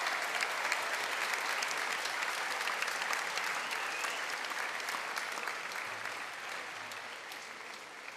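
Large crowd applauding, the clapping slowly dying down toward the end.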